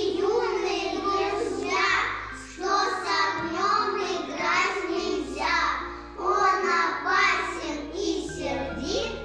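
A group of young children singing together in unison over an instrumental backing track, in short phrases.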